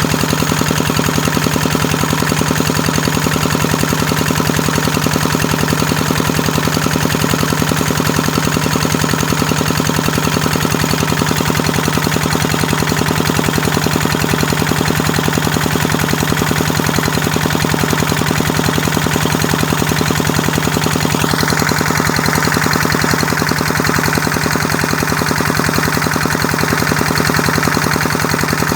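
Kubota diesel engine running steadily at speed, with a rapid, even firing beat under a strong low hum. About two-thirds of the way through, a short rising sweep is heard and the higher part of the sound changes tone.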